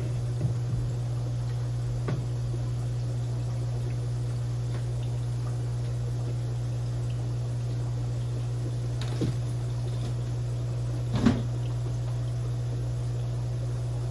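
Aquarium filter running with a steady low hum and a light trickle of water, broken by a few faint short sounds, the clearest about eleven seconds in.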